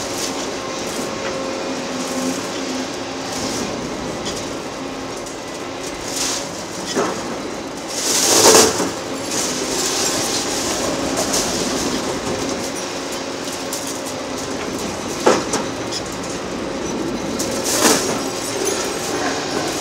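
A Caterpillar 390F L excavator's diesel engine running under load while its Hydraram HCC-95V hydraulic concrete crusher breaks up bridge concrete, with grinding, scraping and clattering of concrete and steel. The loudest crash comes about eight seconds in, and there are sharp knocks twice more near the end.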